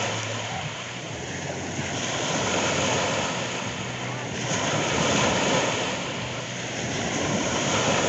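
Adriatic sea waves washing onto the shore: a hissing rush that swells and falls back three times, a few seconds apart.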